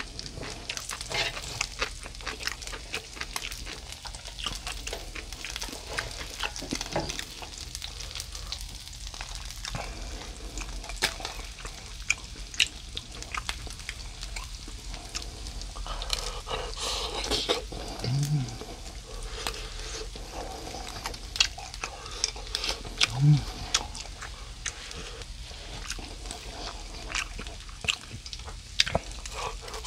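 Eating sounds: chewing and mouth noises over grilled mackerel and rice, with many short clicks of wooden chopsticks against an electric griddle and a bowl. Oil sizzles faintly on the hot griddle underneath.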